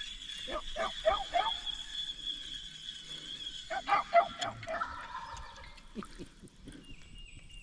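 Turkey calls: two quick series of rapid notes about three seconds apart, over a steady high-pitched tone.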